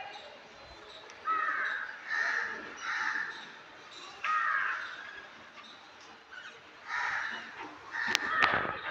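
A crow cawing repeatedly, short harsh calls about a second apart with gaps between runs. A couple of sharp clicks or knocks come near the end.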